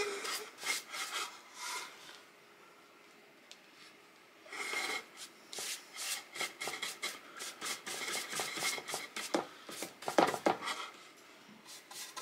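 Paintbrush bristles scrubbing milk paint onto a wooden cutout, in short repeated strokes. The strokes stop for about two seconds, about two seconds in, then resume at roughly two a second.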